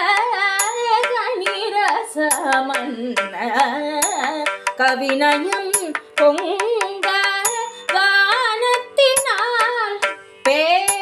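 Carnatic music in raga Naattai, Adi tala: a melodic lead with rapid, heavily ornamented pitch glides over a steady drone, with drum strokes keeping the beat.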